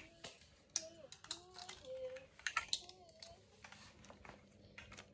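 Lego bricks clicking and clattering as they are handled and pressed together, in scattered sharp clicks.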